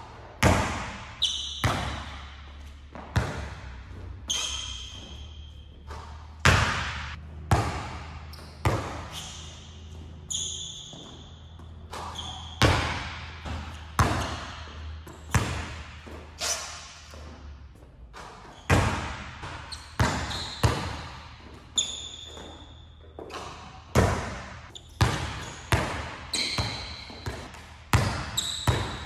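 A basketball bouncing on an indoor sport-court floor in irregular dribbles and catches, each hit echoing around a large gym hall. Short high squeaks, typical of sneakers on the court, come between some of the bounces.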